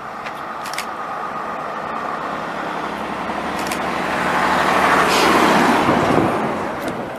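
Vintage London Transport double-decker bus's diesel engine running as the bus drives past close by, growing louder to a peak about five seconds in, then fading.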